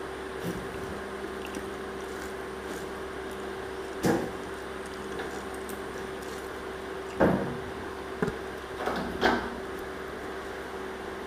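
Eating by hand: rice and curry mixed with the fingers on a banana leaf, then a mouthful taken, giving a few short wet squishes and smacks over a steady background hum.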